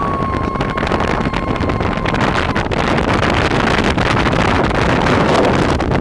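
A woman's long, high-pitched scream that fades out about two and a half seconds in, over steady wind noise on the microphone and the hiss of a snow tube sliding fast down a snow run.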